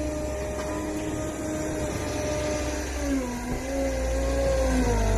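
Gehl V420 skid steer loader's diesel engine running with a steady hum and low rumble; its pitch dips about three seconds in and again near the end.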